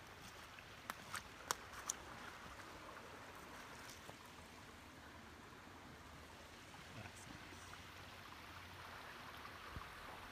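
Faint steady trickle of a small woodland stream, with a few sharp clicks about a second in.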